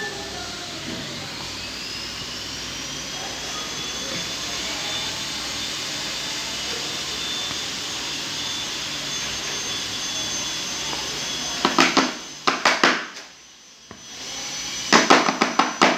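A vacuum-like electric machine runs steadily, its high whine rising over the first few seconds as it spins up and then holding. Near the end come two bursts of rapid, loud clattering knocks.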